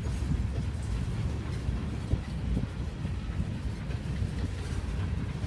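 Freight train of covered hopper cars and gondolas rolling past: a steady low rumble of steel wheels on rail, with faint scattered clicks.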